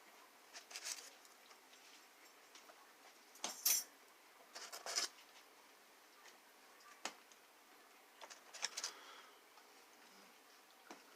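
A person chewing pizza, with scattered short wet mouth clicks and crunches of crust, the loudest a few seconds in and again near the ninth second.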